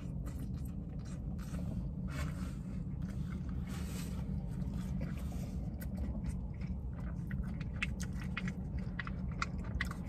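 A person biting into and chewing a burger close to the microphone, with a run of small, sharp mouth clicks in the last few seconds. A steady low hum fills the car cabin underneath.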